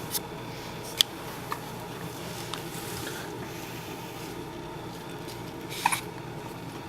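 Hiccups: a few short, sharp hiccup sounds in the first couple of seconds, the loudest about a second in, and one more just before the end, over a steady low hum.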